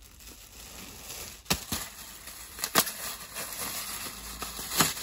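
Plastic packaging being handled: crinkling with a few sharp crackles, about one and a half, three and five seconds in, as a folded, plastic-packed length of dress fabric is pulled out and handled.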